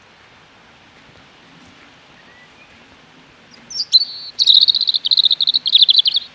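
A small bird calling: after a quiet start, a loud, fast series of high chirps begins about three and a half seconds in and repeats many times a second.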